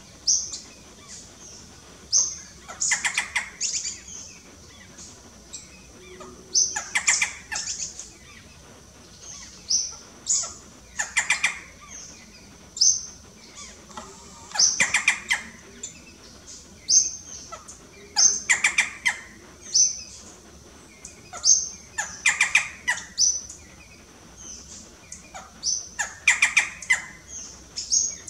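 Barred forest-falcon calling: a burst of harsh notes about every four seconds, seven in all. A thin, high, upslurred note repeats about every two seconds between the bursts.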